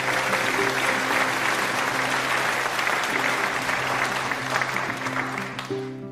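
Applause, a dense crowd of clapping that fades out near the end, over light background music.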